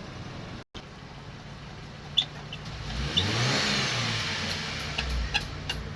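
A motor vehicle passes by, its engine and tyre noise swelling and fading over about two seconds over a steady low hum, with a few sharp metallic clicks before it and a quick run of clicks near the end.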